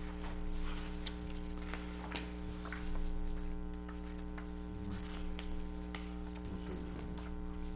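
Steady electrical mains hum in the meeting-room microphone system, with faint scattered rustles and small clicks of paper being handled.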